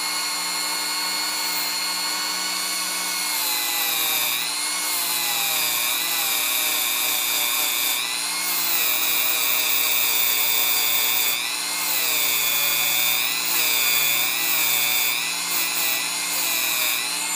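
Dremel rotary tool running with a brass wire brush bit, a steady high whine whose pitch dips again and again as the brush is pressed against a spark plug's ground electrode to smooth its filed edges.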